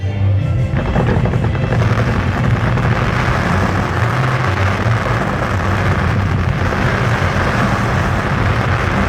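Fireworks barrage: many shells bursting in quick succession that merge into a continuous loud rumble with crackle, starting suddenly.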